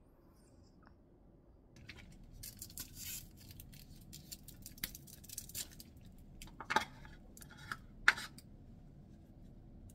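Plastic packaging rustling and crinkling from about two seconds in, with light clicks as a cup café latte is handled, then two sharp clicks near the end as a straw is pushed through the cup's lid.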